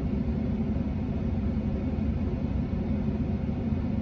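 Vehicle engine idling: a steady low rumble, heard from inside the cab.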